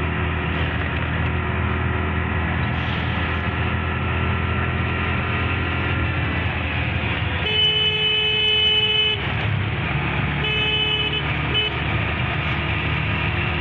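A vehicle horn sounds with one long blast of about a second and a half past the middle. Two shorter toots follow, over the steady drone of a car driving in traffic.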